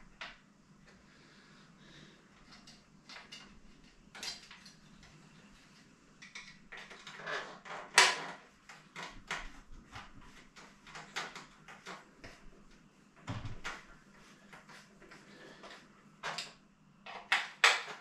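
Scattered clicks, clinks and knocks of tools and bike components being handled during the strip-down of a carbon triathlon bike, with one sharper knock about eight seconds in and a quick run of knocks near the end.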